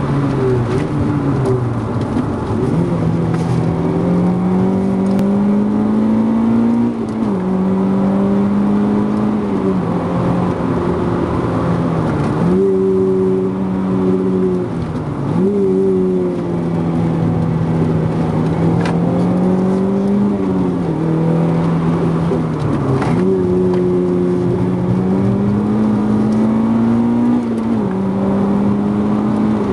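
Renault Clio III RS 197's 2.0-litre naturally aspirated four-cylinder engine heard from inside the cabin, pulling hard. Its note climbs under throttle and falls back sharply every few seconds as the car is driven flat out downhill, with road and wind noise underneath.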